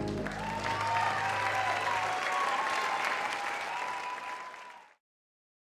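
Audience applauding, with the low final note of the music dying away under it in the first two seconds; the sound cuts off abruptly about five seconds in.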